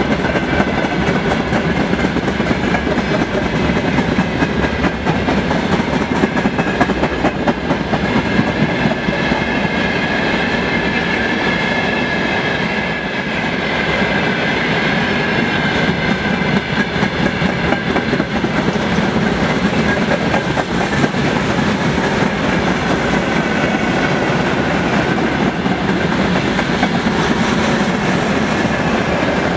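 Freight train of open-top gondola wagons rolling past at about 44 km/h: a steady rumble with dense clatter of wheels over the rails. A faint, wavering high ringing tone runs through it.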